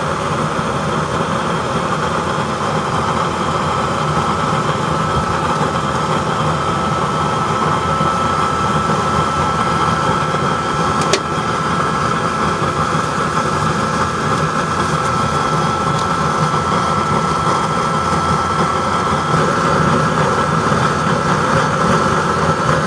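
A 12-volt high-speed blower running steadily, forcing air into a used-oil stove's nozzle burner: an even rushing noise with a thin, steady high whine. A single click about eleven seconds in.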